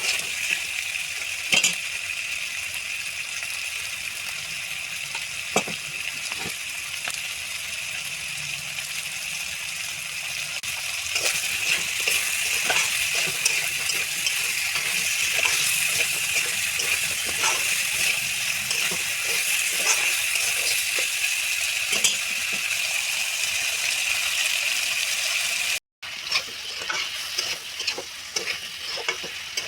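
Food frying and sizzling in oil in a pan, with a steady hiss, while a spoon stirs it and knocks against the pan now and then. The sound drops out for a moment near the end.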